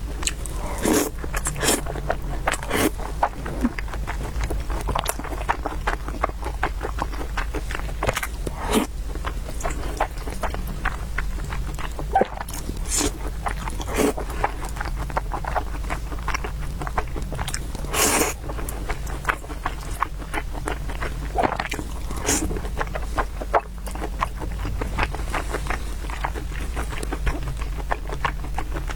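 A person eating noodles and soup: continuous chewing and wet mouth sounds, with several louder slurps or bites scattered through, over a steady low hum.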